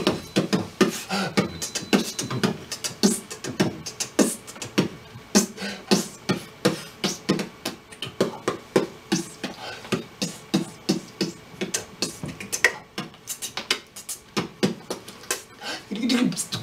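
A performer imitating the grand finale of a fireworks display with his mouth: a dense, rapid string of pops and bangs, several a second.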